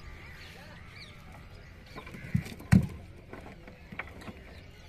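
Two dull thumps against the planks of a small wooden boat, close together about two and a half seconds in, the second louder, while a caught fish is being freed from a gill net. Faint bird calls behind.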